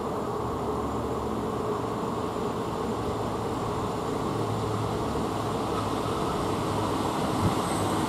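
Class 150 Sprinter diesel multiple unit approaching along the line, its underfloor diesel engines humming over the rumble of its wheels on the rails and growing slowly louder as it nears.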